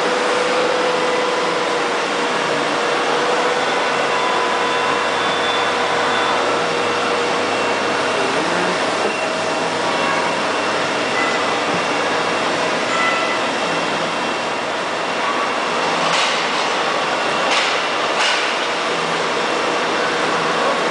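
Toshiba TUE-15 CNC vertical boring mill running under power: a steady mechanical whir and hum with faint, shifting whining tones, and a few sharp knocks near the end.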